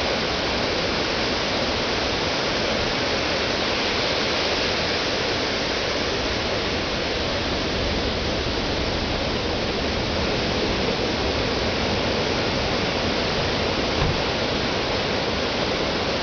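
Ocean surf breaking on a sandy beach: a steady wash of noise, with a brief low bump near the end.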